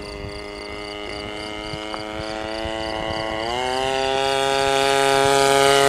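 RCGF 26cc single-cylinder two-stroke gas engine of a Pitts Special model biplane running at high throttle on a fast approach, getting steadily louder. A little past halfway the engine note rises in pitch.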